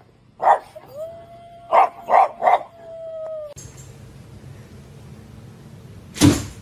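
A dog giving short loud yips or barks, three in quick succession, over a held, steady howling note; one more loud bark near the end.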